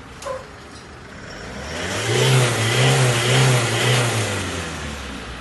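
Isuzu D-Max pickup's engine revved up: the engine sound swells about a second and a half in, holds loud for about two seconds, then dies back down.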